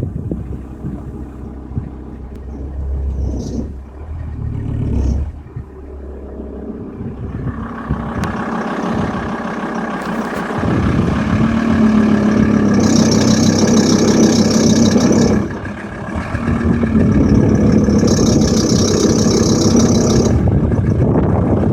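VW T4 2.5 TDI (ACV) five-cylinder diesel engine idling, then pulling harder as the clutch is slowly let out in a high gear against the handbrake. Twice a high-pitched chirping comes in, each time for two to three seconds, heard only with the driveline under this load.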